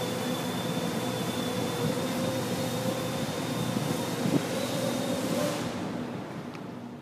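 Custom-frame quadcopter's electric motors and propellers running with a steady buzzing whine, which fades over the last second or so as the throttle comes down.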